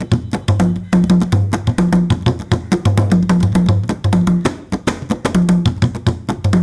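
Giriama drum music: fast, dense drum strokes with sharp, wood-block-like cracks over deep tones that alternate between two pitches.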